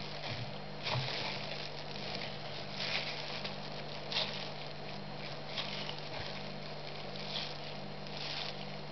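Soft rustling and light scraping of plastic-gloved hands handling a brake caliper while working the rubber dust boot onto its piston, in irregular rustles a second or two apart, over a steady low electrical hum.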